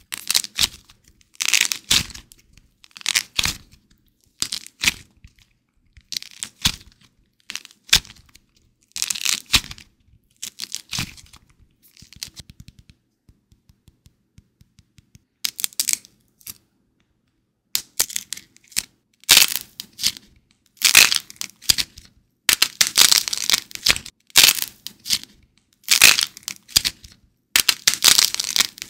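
Dried glossy crust on a soft-clay figure cracking and crumbling under squeezing fingers, in bursts of crackling. A quieter stretch about twelve seconds in, then denser, louder crackling from about nineteen seconds.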